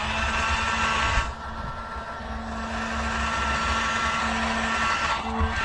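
Heat gun switched on and running, its fan motor giving a steady whine over the rush of blown air. The sound dips about a second in, then builds back up.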